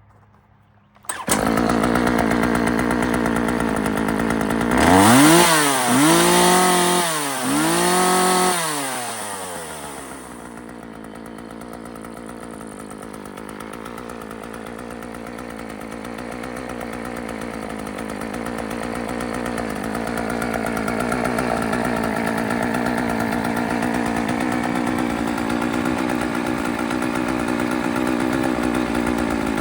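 McCulloch two-stroke chainsaw engine starting up about a second in and running. It is revved three times in quick succession a few seconds later, then settles to a steady idle.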